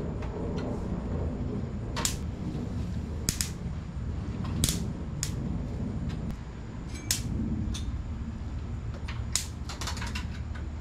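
Sharp snapping clicks, about a dozen at irregular spacing: the 'tách tách' of summer insects at night. Under them run a low steady hum and light knocking from a sliding screen door being handled onto its track.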